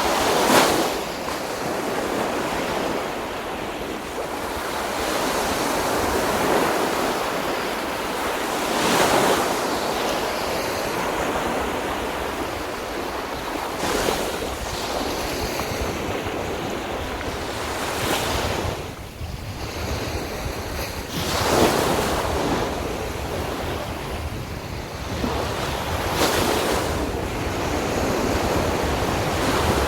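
Sea waves breaking on a beach: a constant wash of surf with a louder break every four to five seconds. Wind buffets the microphone underneath.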